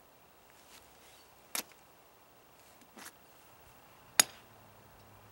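A hand-forged rebar French nail (trench spike) slashing across a watermelon's rind: three sharp strikes, the last the loudest. The blade only scores the rind.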